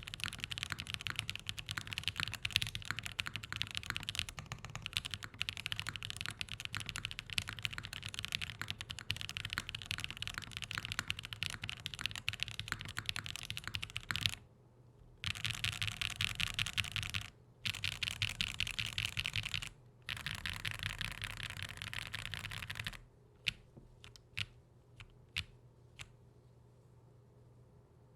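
XOX70 mechanical keyboard with Graphite Gold switches on an aluminium plate: fast continuous typing, then after a short pause three runs of keystrokes typed row by row with brief gaps between them. Near the end only a few separate clicks are heard, as the board is pressed for its flex test.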